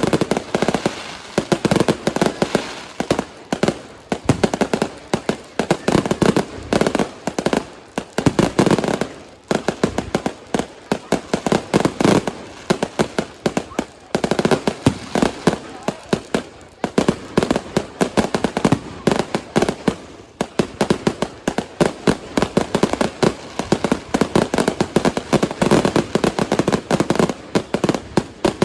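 Consumer firework display firing in rapid succession: a dense, continuous run of bangs and crackles, many a second, with crowd voices underneath.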